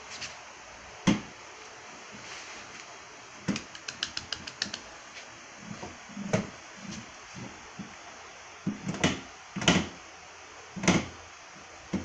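A toddler's hands pressing and tapping the buttons and front of a plastic electronic unit on a TV stand, making irregular clicks and knocks. About four seconds in there is a quick run of about eight clicks, and several louder knocks come later on.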